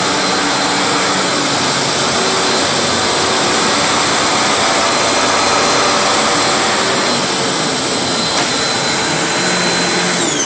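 Hoover WindTunnel upright vacuum cleaner running at full speed with a loud, steady high whine, then switched off near the end, the whine falling as the motor spins down.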